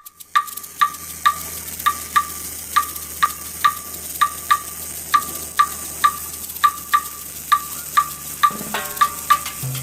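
Welding arc sizzling with a steady crackling hiss over a low hum. A rhythmic wood-block-like click beat of background music, about three ticks a second, runs over it.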